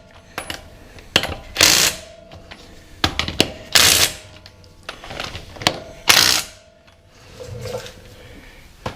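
Hand ratchet clicking in repeated strokes, with a louder metallic rasping burst about every two seconds, as a car's front wheel is refitted after brake work.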